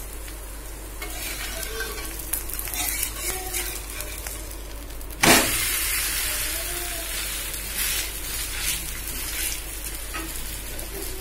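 Ragi and drumstick-leaf adai frying in oil on a cast-iron tawa, sizzling steadily, with a metal spatula scraping and clicking against the pan. About halfway through the adai is flipped with a sudden slap, and the sizzle turns louder and hissier as the uncooked side meets the hot oil.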